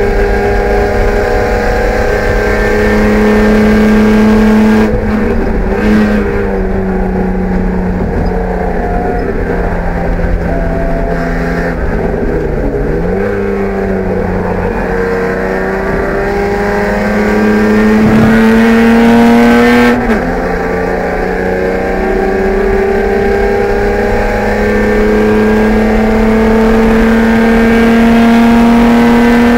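BMW E30 race car's engine heard from inside the cabin, running hard under load with its pitch climbing slowly through each gear. The pitch drops sharply at gear changes about five seconds in and again about twenty seconds in, with a brief dip and rise near the thirteen-second mark.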